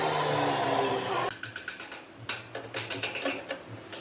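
Electric power tool motor running, its pitch sinking slowly, then stopping abruptly about a second in. Light clicks and knocks follow, like tools or small parts being handled on a bench.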